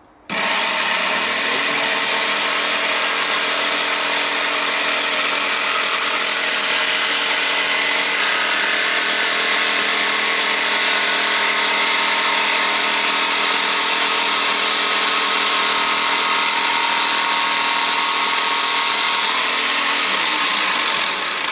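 Bosch jigsaw with a PMMA blade cutting acrylic sheet at a higher speed setting: a loud, steady motor whine with blade rasp that starts abruptly. Near the end it winds down in pitch as the saw is switched off.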